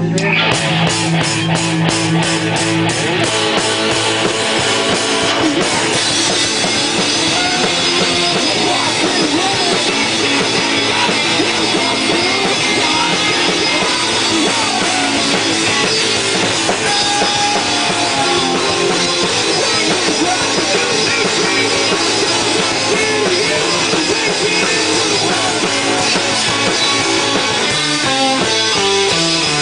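A rock band playing loud and without pause: electric guitars over a full drum kit with cymbals, with a fast, even beat in the first few seconds.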